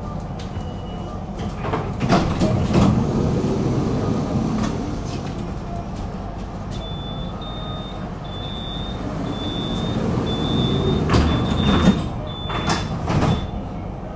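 Inside a city tram at a stop: the sliding doors clunk, and a run of short, evenly spaced high beeps sounds for about seven seconds, the warning that the doors are closing. The tram's steady low rumble runs underneath.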